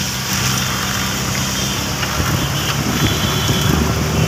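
Auto-rickshaw engine running under the steady hiss of heavy rain, heard from inside the open cab; the engine note turns rougher about two seconds in.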